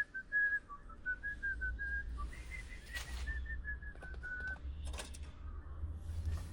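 A run of short whistled notes, several a second, wandering in pitch, that stops about four and a half seconds in. A low rumble runs underneath, with a couple of sharp clicks.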